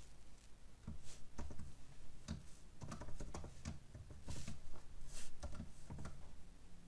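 Typing on a computer keyboard: irregular keystrokes as a variable name is entered.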